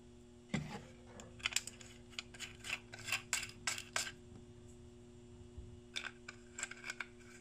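Small metal tools and parts clinking and clattering on a wooden workbench as a wrench and the fence charger's terminal parts are handled: a knock about half a second in, a run of sharp clicks, a pause, then more clicks near the end. A steady faint hum runs underneath.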